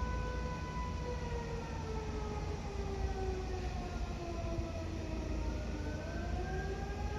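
Eclipse 8 outdoor warning siren sounding for an emergency call. Its tone holds steady, then slowly drops in pitch over several seconds and begins climbing again near the end, a rising and falling wail.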